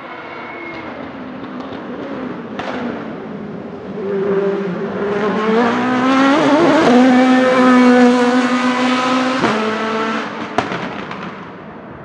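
Rebellion R-13 LMP1 race car's Gibson GL-458 4.5-litre V8 accelerating hard past the track fence, its pitch climbing to a loud peak. There is a sudden drop in pitch about nine and a half seconds in and a sharp crack just after, then the sound fades as the car pulls away.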